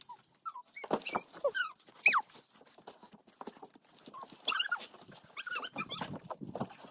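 Short high squeaks and a few light knocks as a barefoot child scrambles up a plastic playground slide. The loudest is a sharp falling squeak about two seconds in.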